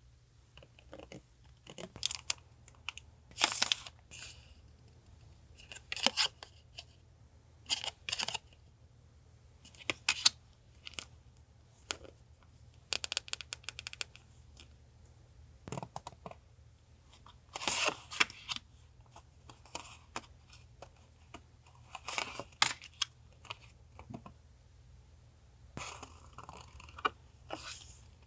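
Paper being handled: irregular bursts of rustling and tearing, several seconds apart, over a refrigerator's steady low hum.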